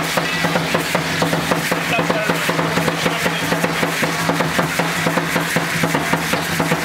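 Upright huehuetl drum beating a fast, even rhythm of about four strokes a second, with the dancers' seed-shell ankle rattles shaking in time with their steps.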